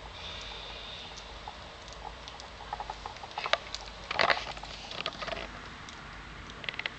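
Soft rustling and small scratchy clicks as newborn puppies stir on a fleece blanket, with a louder scratchy cluster about four seconds in.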